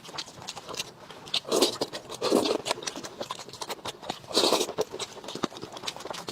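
Eating sounds: chewing and mouth smacks as a quick, irregular run of sharp clicks, with three louder, fuller bursts about one and a half, two and a half, and four and a half seconds in.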